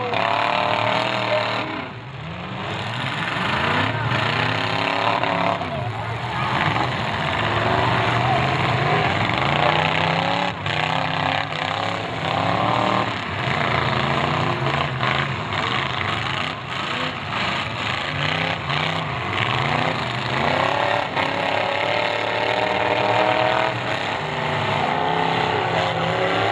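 Demolition derby cars' engines running and revving, rising and falling in pitch over and over, with a few sharp knocks.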